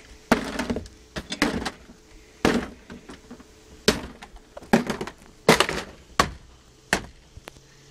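Hammer blows smashing a wooden dollhouse: about ten hard strikes at irregular intervals, roughly a second apart, the wood panels cracking and breaking.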